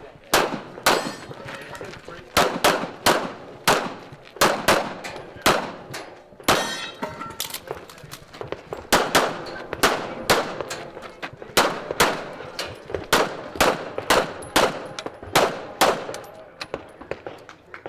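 Competition pistol shots fired in quick pairs and strings, some two dozen sharp cracks at uneven spacing, each with a short ringing tail.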